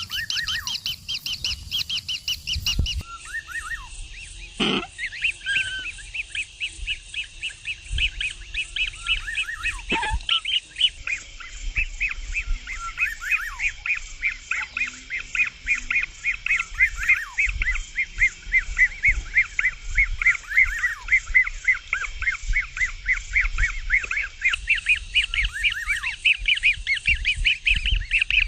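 Kingfisher chick calling in a fast run of short, harsh, downward-slurred notes, several a second, with two sharp clicks about five and ten seconds in.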